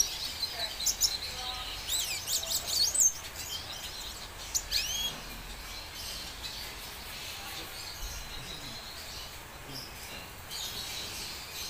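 Red siskin singing: a quick run of high, sweeping chirps about two seconds in, then a single curved note near the five-second mark; the rest is faint background.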